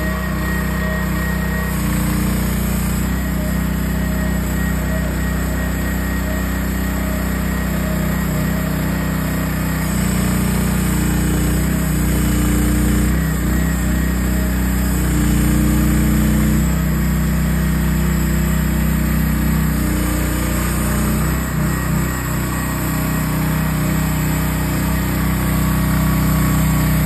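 Single-cylinder 420cc gas engine of an AGT QS12R mini hydraulic excavator running steadily while the machine tracks and works its arm. The engine note shifts up and down in steps several times as the hydraulics take load.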